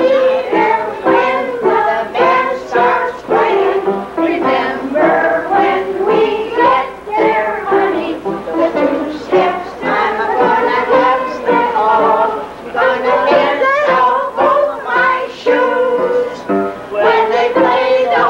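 A kitchen band playing a tune, several melody parts sounding together.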